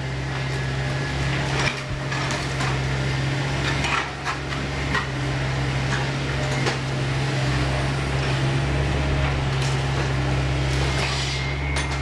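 Kato excavator's diesel engine running steadily as its demolition attachment tears into a wooden building, with repeated sharp cracks, knocks and clatter of breaking timber and falling debris.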